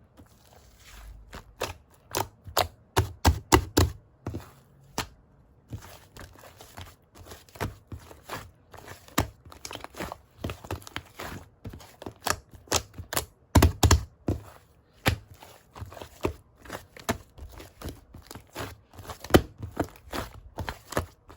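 Slime being pressed and squished by hand, giving irregular sharp popping clicks a few times a second, with a few louder pops around the middle.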